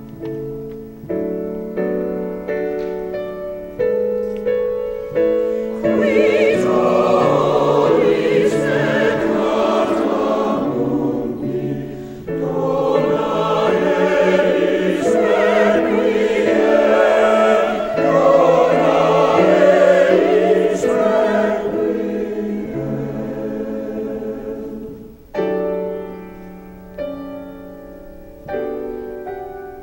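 Choir singing a slow classical anthem with piano accompaniment. The piano plays alone at first, the choir comes in about six seconds in and holds long wavering chords, and it drops out near the end, leaving the piano.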